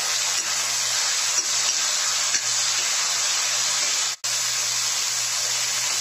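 Chopped tomatoes sizzling in hot mustard oil with frying onions in a steel kadhai, stirred with a steel spoon, with a few faint clinks. The sound cuts out for a split second about four seconds in.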